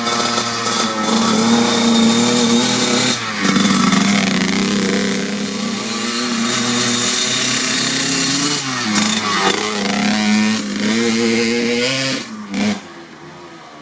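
1997 Kawasaki KX80 two-stroke dirt bike engine, breathing through a Dep S2 aftermarket silencer, running at held revs. The revs dip and pick back up a couple of times, then the sound falls away sharply near the end.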